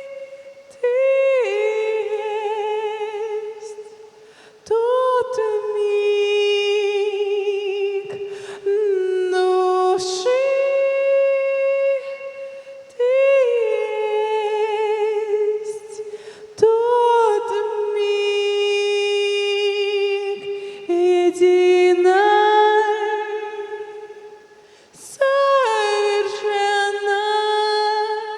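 A solo voice singing wordless sustained vowel tones unaccompanied, as vocal channeling: about seven long held notes, each starting with a quick upward slide and wavering with vibrato, with short pauses between them.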